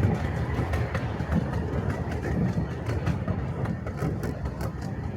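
Miniature railway train running on its track: a steady low rumble with rapid clicking of wheels over the rail joints.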